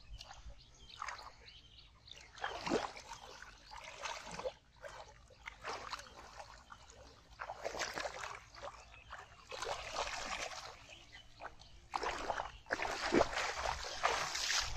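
Muddy paddy water splashing and sloshing in irregular bursts as a person wades and gropes with his hands through the shallow water.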